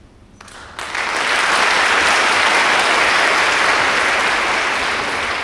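Audience applause: a few claps about half a second in, then the whole crowd joins within a second and claps steadily.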